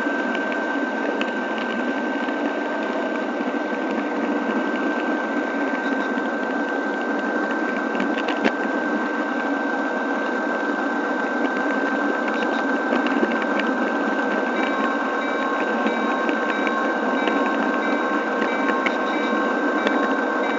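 Model train rolling along the layout's track, heard from a camera riding on it: a steady whir of small wheels and motor with a constant high whine, and scattered clicks as the wheels cross rail joints and turnouts. More whining tones join about two-thirds of the way through.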